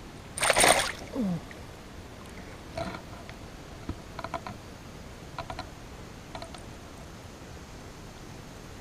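A short, loud splash of water on the pond, then a few light clicks and taps from handling gear on a float tube.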